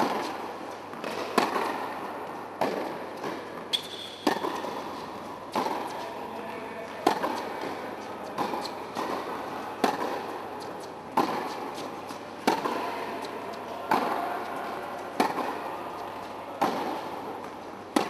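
Tennis rally: sharp racket-on-ball hits and ball bounces on a hard court, a loud strike about every second and a half, echoing in an indoor tennis hall.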